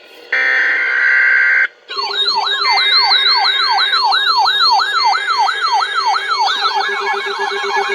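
A weather radio's SAME digital header, a steady data tone for about a second and a half, followed by the receiver's electronic siren alert: a falling sweep repeating about three times a second, joined by a second, faster sweeping siren near the end. The alert marks an incoming Environment Canada tornado warning.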